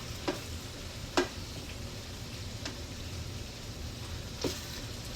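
Vegetables and rice sizzling in a frying pan while being stirred, with four sharp clicks of the utensil against the pan, the loudest about a second in.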